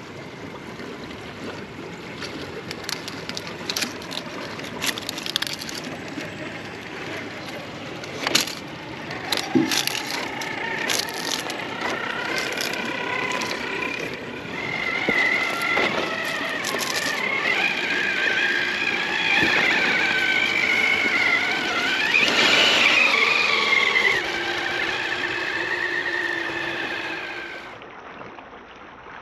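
Onboard sound of a Vanquish VS4-10 Phoenix RC rock crawler: its tyres and chassis clatter and knock over rocks, then its Hobbywing brushless motor and geared drivetrain whine, rising and falling in pitch with the throttle. The sound fades out near the end.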